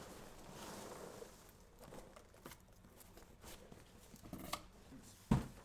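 Polystyrene packing peanuts rustling and shifting in a cardboard shipping box as the contents are handled, with scattered light taps and clicks, then a single sharp thump near the end.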